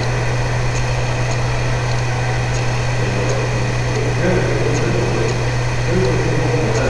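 Steady low hum and room noise, with faint murmured voices in places.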